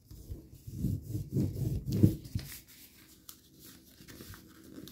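A sheet of paper being folded and creased by hand, fingers rubbing and pressing it along the fold against the tabletop. The rubbing and bumping are loudest and dullest between about one and two and a half seconds in, then fade to faint scratchy handling.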